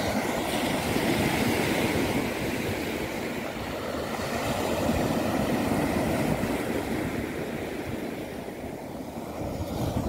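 Small waves breaking and washing up a sandy beach, swelling about a second in and again around five seconds, with wind rumbling on the microphone.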